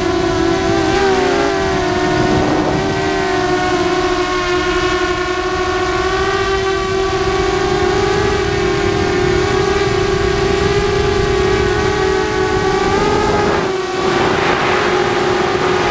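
ZMR250 FPV quadcopter's brushless motors and propellers, heard from the onboard camera, whining steadily with several close tones that waver slightly in pitch as the throttle changes. Near the end the whine dips briefly, then comes back with a short burst of rushing air noise.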